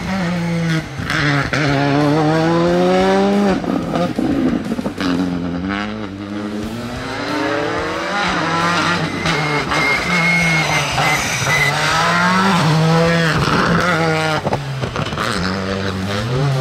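Skoda Fabia R5 rally car's turbocharged 1.6-litre four-cylinder engine revving hard as the car accelerates past, its pitch climbing through each gear and dropping at every shift, several times over.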